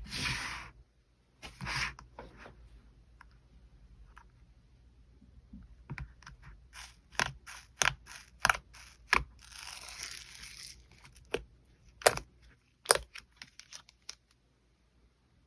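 Soft white glitter slime being squished and pressed by hand, making a string of sharp wet clicks and pops, with a longer crackling rustle at the start and another about ten seconds in.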